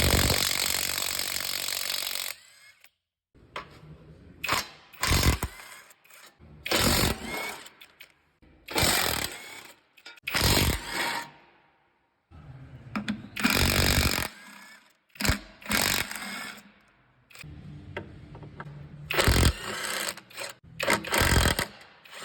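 JAVN stubby half-inch cordless impact wrench hammering in about a dozen bursts of one to two seconds each, the longest at the start, as it works to take car lug nuts off.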